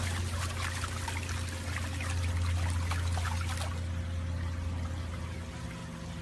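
Pool water splashing and trickling as a French bulldog puppy paddles its legs at the surface. The splashing stops a little over halfway through, leaving a steady low hum.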